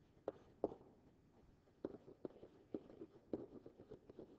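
Faint, irregular taps of a stylus on a tablet screen as words are handwritten, about eight to ten short clicks spread unevenly.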